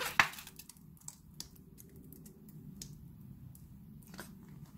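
Mayonnaise squeezed from a plastic squeeze bottle onto salad ingredients in a glass bowl: a short sharp burst of noise at the start, then scattered soft clicks from the bottle as it is worked.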